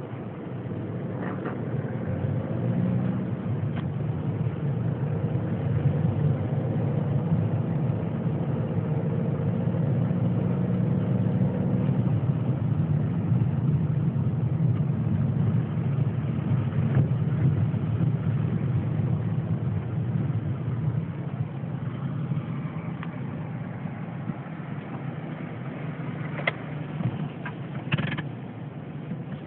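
Car engine running, heard from inside the cabin as a steady low rumble. A couple of sharp clicks come near the end.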